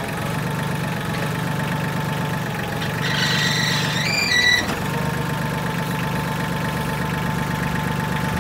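Tractor engine running steadily at a low speed. From about three seconds in there is a short high-pitched whine that steps in pitch, while the engine note sags briefly under the loader's hydraulic load.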